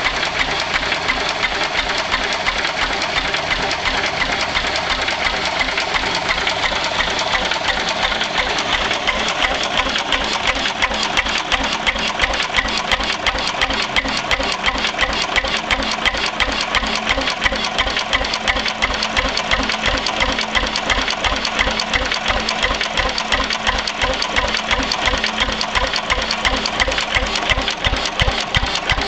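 1918 Lister P type 6 hp single-cylinder stationary engine running steadily, with an even, fast beat of firing strokes.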